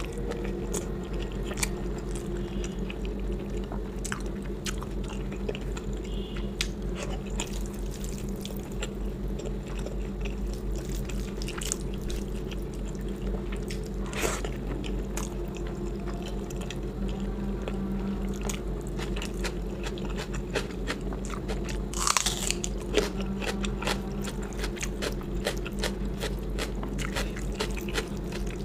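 Close-miked chewing and mouth sounds of a person eating a curry and rice meal, with many small clicks and a few louder ones, the loudest about two-thirds of the way through. A steady low hum runs underneath.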